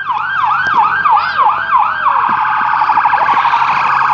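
Fire truck siren sounding a yelp of quick rising sweeps, about three or four a second. About two seconds in it switches to a much faster warble.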